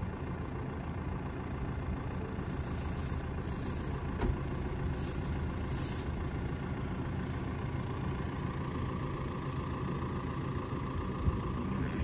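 Tractor engine running steadily beside a parked large square baler: an even low hum, with one light knock about four seconds in.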